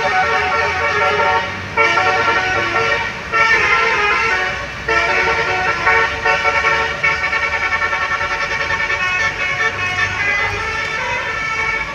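Bus 'telolet' multi-tone horn playing a melody in several phrases of chord-like tones, each phrase starting abruptly, over the low hum of the bus engine running.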